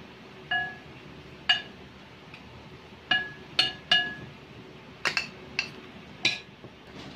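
Metal spoon clinking against a ceramic bowl while cornstarch is spooned onto sliced beef: about eight sharp, ringing clinks at irregular intervals.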